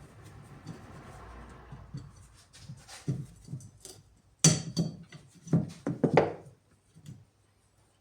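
Knocks and clatter of hard objects being handled, with a quick run of sharp strikes about halfway through.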